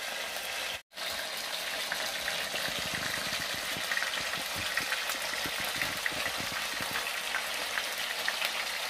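Burger patties sizzling in a frying pan: a steady hiss with small crackles and pops. The sound cuts out for a moment about a second in.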